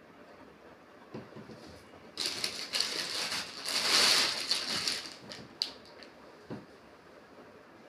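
Plastic bag crinkling and rustling for about three seconds as a woollen door hanging is pulled out of it, loudest near the middle, with a few light handling knocks around it.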